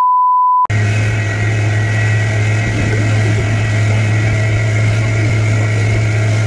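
A steady high single-pitch beep that cuts off under a second in, then a small boat's outboard motor running steadily under way, with a hiss of wind and water.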